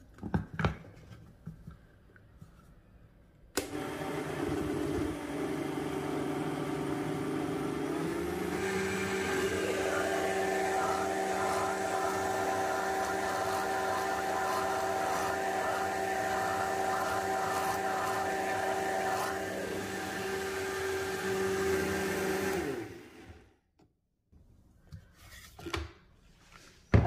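High-powered countertop blender puréeing a thick avocado sauce. It switches on about three and a half seconds in, steps up in speed about five seconds later, runs steadily, then winds down and stops near the end. There are a few light clicks from the lid before it starts and after it stops.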